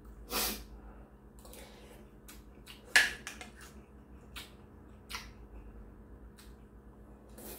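Someone eating from a ceramic bowl with a metal spoon: scattered light clicks of the spoon against the bowl, the sharpest about three seconds in, with a short breathy sniff near the start and quiet mouth noises, over a faint steady hum.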